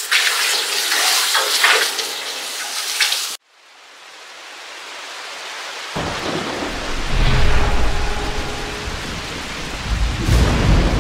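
Hot freshly cast metal frying pan hissing and sizzling as it is quenched in a bucket of water; the sound cuts off sharply about three seconds in. Then a rain and thunder sound effect swells up from faint, with deep thunder rumbling from about six seconds in.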